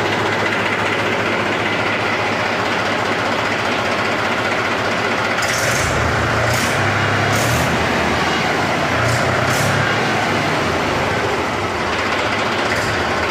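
Mahindra 265 DI three-cylinder diesel tractor engine running. Its low note shifts a few times in the middle, and a few short sharp noises come through between about five and ten seconds in.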